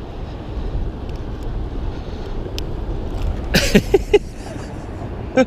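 Wind buffeting the microphone, a steady low rumble, with a short voice sound about three and a half seconds in.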